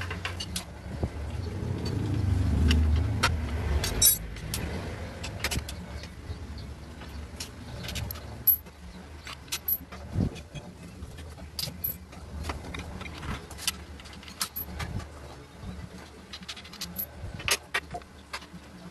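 Irregular metallic clicks and clinks of a hand tool working the 8 mm bolts off a Yamaha NMAX 155's crankcase cover. A low rumble swells and fades in the first four seconds.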